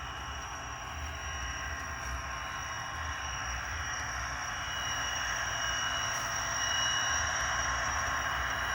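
A Walthers EMD F40PH model locomotive's sound unit playing diesel locomotive running sound: a steady hiss with several constant high-pitched whines over a low throb, slowly growing louder.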